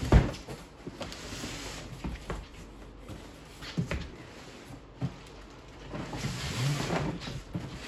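Cardboard box being unpacked by hand: a sharp thump right at the start, a few scattered knocks of cardboard and parts, and plastic wrapping rustling for a second or so near the end.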